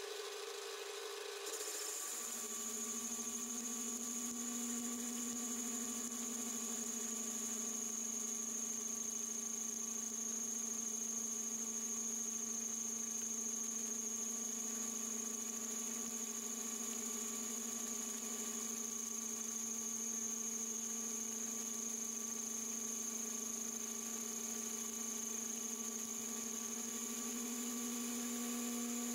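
Metal lathe running under power while a brazed carbide tool turns down the outer diameter of a scaled metal workpiece: a steady motor hum with a high whine. The sound changes abruptly about a second and a half in, then stays steady.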